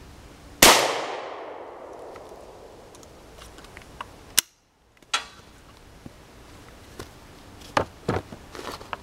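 A single .45 Long Colt round fired from the New England Firearms Survivor's .45 Colt/.410 barrel: one sharp bang about half a second in, its echo dying away over about two seconds. Sharp metallic clicks follow around four and five seconds as the single-shot action is handled, and a few knocks near the end as the gun is laid on a plywood board.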